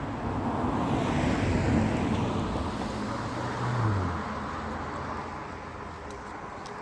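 A road vehicle passing by: its noise swells, peaks about two seconds in, then fades, with a low engine note dropping in pitch as it goes past.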